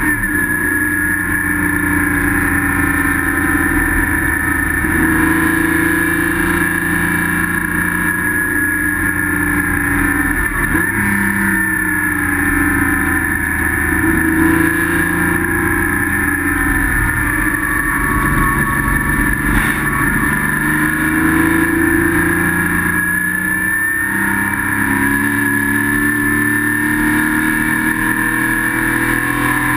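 Spec Boxster race car's flat-six engine heard from inside the cockpit, under load at racing speed, its pitch rising and falling through gear changes and corners, with a sharp dip in revs about eleven seconds in.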